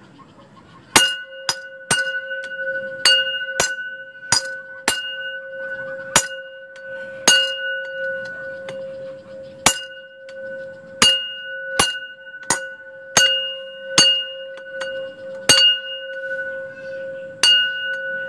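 A small bell-like chime struck sharply again and again, some seventeen times at uneven intervals mostly a second or less apart, each strike ringing on in a steady tone that carries through to the next. It serves as the sound cue for conditioning a pet rodent to go to its food box.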